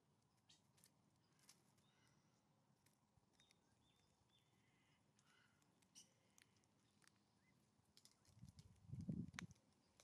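Quiet outdoor background with scattered faint ticks, then near the end a quick cluster of dull knocks as a common raven's bill strikes the wooden stump feeder while it picks up dried mealworms.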